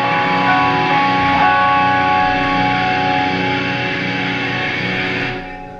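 Live metalcore band's distorted electric guitars holding a sustained, ringing chord, which drops away near the end.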